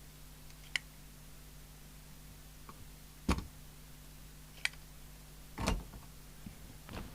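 A few separate sharp clicks and knocks from small tools and parts being handled on a workbench, over a faint steady hum.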